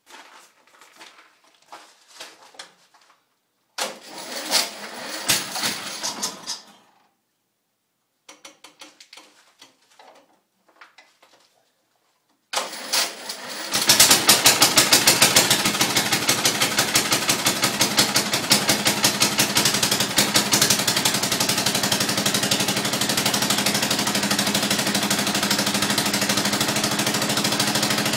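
Cold start at about -15 of a Turf Trac 8/30 lawn tractor's single-cylinder Briggs & Stratton engine. Some clicks and a first few-second noisy burst come first. About twelve and a half seconds in it cranks again, catches just before fourteen seconds, and runs loudly, pulsing unevenly at first and then settling into a steadier run.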